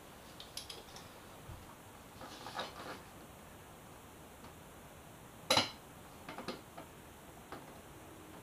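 Scattered light clicks and knocks of a plastic motorcycle fairing panel and its small fasteners being handled and fitted, with a brief rustle and one sharper click about five and a half seconds in.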